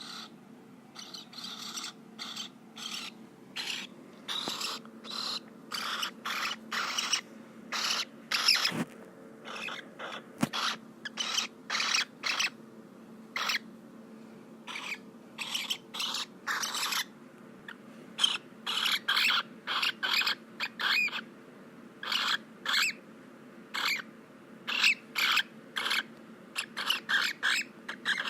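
Cockatiel repeating short, raspy calls in irregular runs, about one or two a second, some louder than others.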